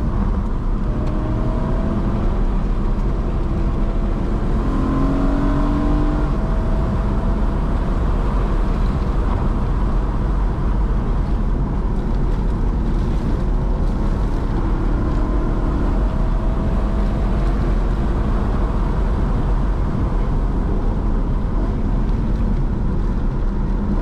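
BMW E92 M3 Competition's 4.0-litre V8 driven at speed, under a steady heavy rumble of road and wind noise, its engine note rising briefly a few times.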